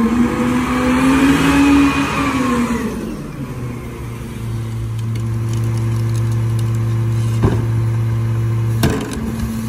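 Mack LR garbage truck's engine revving as the truck pulls ahead, its pitch rising and then falling away about three seconds in. The engine then runs at a steady low note, with two sharp knocks near the end.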